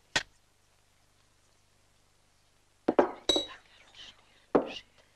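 Glass soda bottles being handled: a sharp click just after the start, then after a quiet spell a few knocks and a ringing glass clink, and one more knock near the end.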